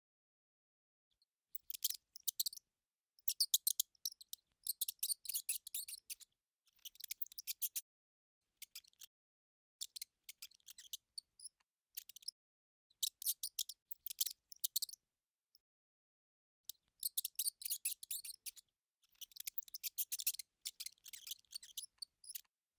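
Cartoon mouse sound effect: about ten short bursts of rapid, high-pitched scratchy clicking, each lasting up to a couple of seconds, separated by brief silences.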